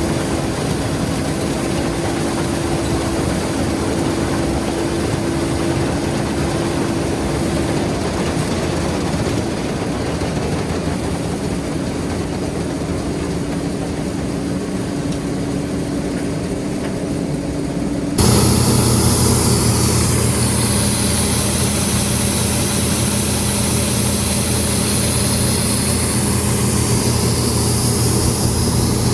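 Combine harvester running steadily while harvesting soybeans: a steady engine and machinery drone with a couple of steady hum tones. About eighteen seconds in, the sound jumps abruptly to a louder drone with a strong hiss over it.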